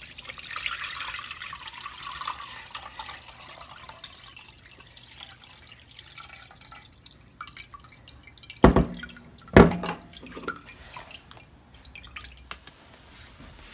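Lemon-and-cucumber-infused water poured from a glass jug through a reusable mesh coffee filter into a glass bowl, splashing for the first few seconds, then trickling and dripping. Two loud knocks about a second apart a little past the middle, then a few light clicks.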